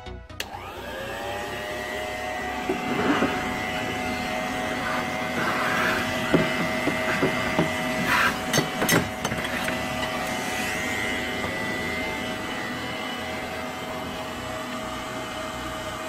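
Vintage Famulus canister vacuum cleaner switched on: its motor spins up with a rising whine that settles within about a second, then runs on steadily with a high whine over a lower hum. A few knocks and clatters come between about 3 and 9 seconds in.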